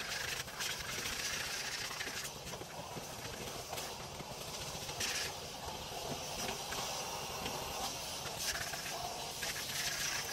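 Steam cleaner hissing in short bursts several times, over a steady rushing background noise.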